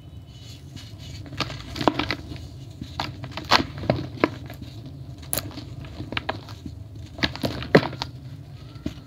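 A crumbly grey block of packed powder crushed and broken apart between two hands over a plastic tub: irregular dry crunches and crackles as it crumbles, in clusters about two, three and a half and seven and a half seconds in.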